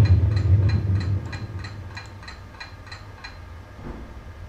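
Light, regular ticking, about three ticks a second, stopping a little over three seconds in, with a low hum dying away about a second in.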